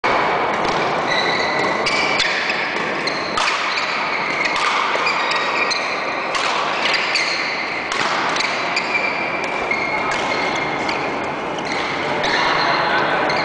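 Badminton rackets hitting shuttlecocks in rallies, sharp hits at irregular intervals about once a second, mixed with short high squeaks of court shoes on the sports-hall floor. The hall is large and reverberant.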